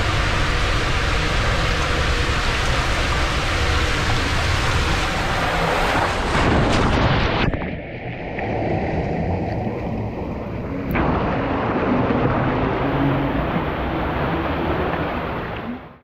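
Loud rushing water and rider sliding through an enclosed water-slide tube, a WhiteWater West drop slide. About seven and a half seconds in the rider drops into the splash pool and the sound turns muffled as water covers the camera, then splashing in the pool returns near eleven seconds.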